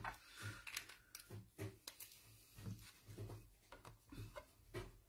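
Faint handling noises: a few soft taps and rustles of cardstock and craft tools being set down and picked up on a tabletop.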